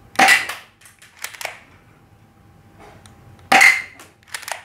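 Manually cocked spring-powered alloy toy Glock 18 pistol firing twice, about three seconds apart, each shot a sharp snap. About a second after each shot come two lighter clicks as the slide is racked back and pushed forward by hand to cock it again.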